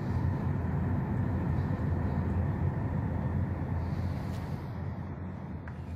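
Car cabin noise while driving: a steady low rumble of road and engine noise, growing a little quieter near the end.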